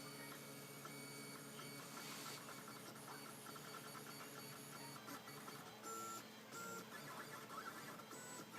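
Prusa i3-style RepRap 3D printer running a test print: its stepper motors whine faintly in short, quickly changing tones as the axes move, with a few longer held tones near the end.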